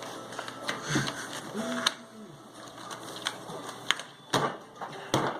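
Rubik's cube being turned with snow-gloved hands: irregular plastic clicks and clacks, a few each second apart, with rubbing between them.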